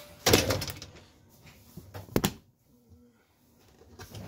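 Rubbing and scraping as a Bosch dishwasher's rubber door gasket is worked into the channel along the stainless-steel tub edge, with a single sharp click about two seconds in.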